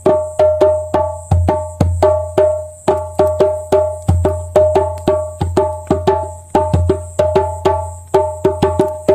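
Music with a quick, even run of short struck, pitched notes over a recurring low bass pulse.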